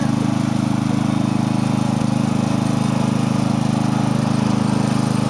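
Riding lawn mower's engine running steadily as the mower drives along at a constant pace.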